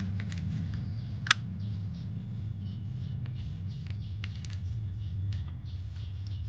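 Hard plastic toy parts clicking and tapping as they are handled and fitted together, with one sharp snap about a second in, over a steady low rumble.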